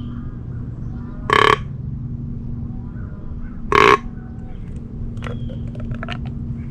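A crow cawing twice, harsh calls about two and a half seconds apart, over a steady low hum.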